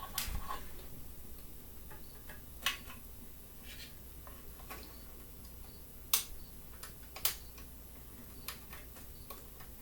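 Small plastic wire connectors being pushed into a laser engraver's control board by hand, giving several sharp, light clicks and taps a second or more apart.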